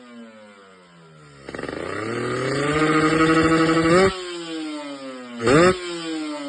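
Carbureted motorcycle engine being revved on the throttle: it winds down, then climbs in one long rev that is cut off sharply, settles to idle, and gets one quick sharp blip near the end.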